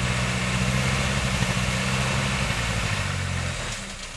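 Off-road 4x4's engine running at steady, held revs, then easing off about three and a half seconds in.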